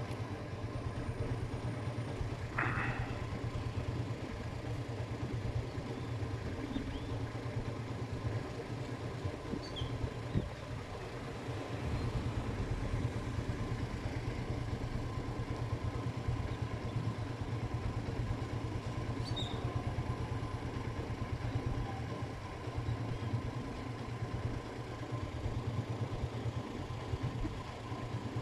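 Steady low engine rumble of street traffic or an idling vehicle, with a short brief sound a few seconds in and two faint high chirps around the middle.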